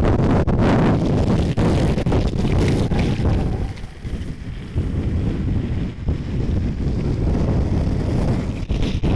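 Wind buffeting the microphone at speed during a fast downhill longboard run, a loud steady rushing that drops away briefly about four seconds in.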